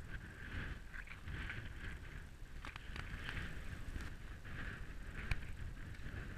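Footsteps crunching on a rocky dirt trail at a steady walking pace, about one step every two-thirds of a second, over a low rumble of wind on the microphone. A couple of sharp clicks stand out, one about halfway and a louder one near the end.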